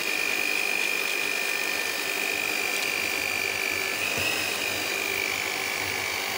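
Electric hand mixer running at a steady speed, its beaters whirring through thick cake batter, with a steady high motor whine that wavers slightly in pitch about four seconds in.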